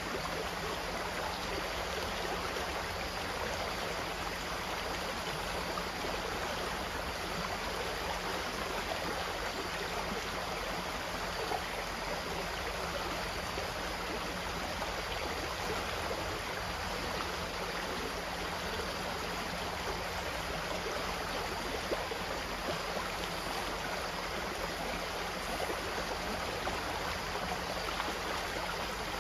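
Running water of a stream or brook, a steady even rush and babble without a break.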